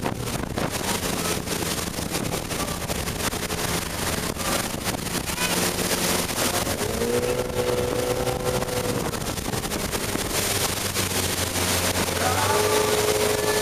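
Towing motorboat's engine running steadily under wind buffeting the microphone and the rush of its wake. Two long held tones rise above it about seven and twelve seconds in.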